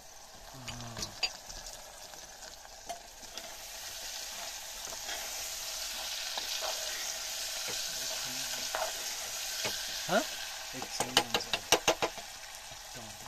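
Vegetables sizzling as they fry in a small metal pot, stirred with a metal spoon that scrapes around the pot. Near the end the spoon knocks the pot several times in quick succession.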